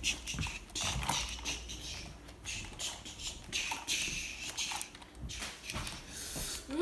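Handling noise from a plastic action figure being moved about close to the microphone: irregular clicks, knocks and rustling.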